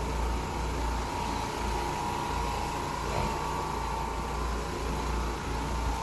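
Carpet-cleaning machine motor running steadily, a continuous whooshing noise with a steady high whine over a low rumble.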